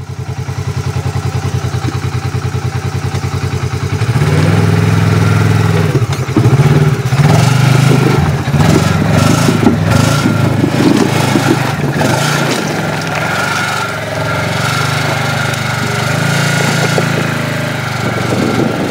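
Polaris RZR XP side-by-side's twin-cylinder engine idling with an even pulse, then revving hard under load from about four seconds in as the machine climbs a steep rock ledge. Sharp knocks of tyres and chassis on rock come through the middle.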